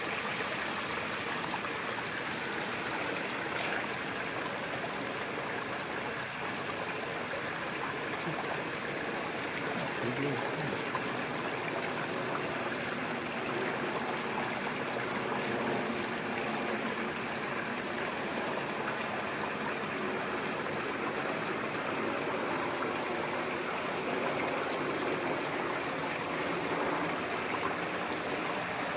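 Steady rushing noise like running water, with many short high chirps scattered through it.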